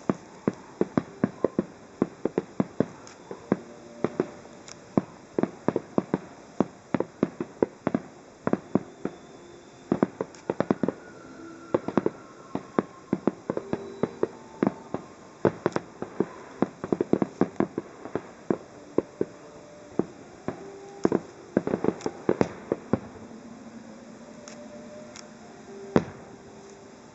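Aerial firework shells bursting in rapid, irregular succession, several sharp bangs a second. They thin out near the end, with one last single bang.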